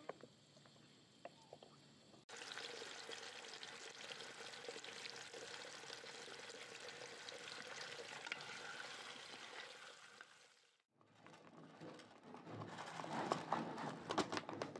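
Sliced potatoes sizzling in hot oil in a pan, moved around with a slotted spoon; the steady crackling sizzle starts suddenly a couple of seconds in and cuts off after about eight seconds. Near the end a run of sharp clicks and crackles.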